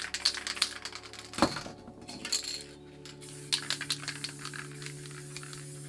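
Metal aerosol spray-paint cans clinking and rattling as they are handled: runs of quick sharp clicks with one heavier knock about a second and a half in, and another run of clicks near the middle.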